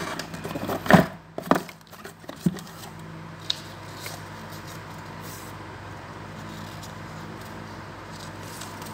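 Cardboard and paper cards being handled: a few knocks in the first couple of seconds and a couple of light clicks, then only a steady low hum.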